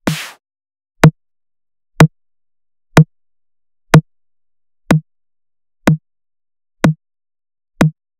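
Synthesized snare drum hits from the ENFORCER plug-in, struck about once a second. The first is the full layered snare with a noisy tail; the next eight are short, dry hits with a low pitched thump, the snare's body layers heard on their own, the last four a little quieter.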